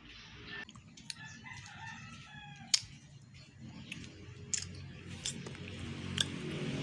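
A rooster crowing once, a call of about two seconds that drops in pitch at the end. Several sharp clicks and knocks come around it, the loudest just as the crow ends.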